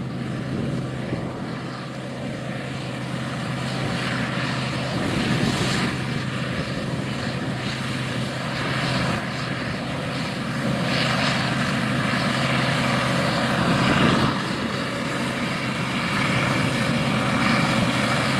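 Combine harvester running in a cornfield: a steady engine and machinery drone with a constant low hum, swelling in loudness a few times.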